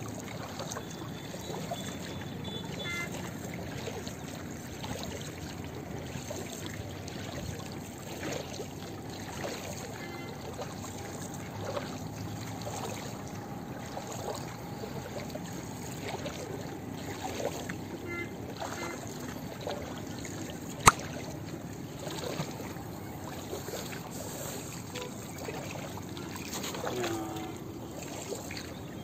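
Water lapping and trickling against the hull of a small wooden boat as it moves over floodwater, steady throughout, with one sharp click about two-thirds of the way through.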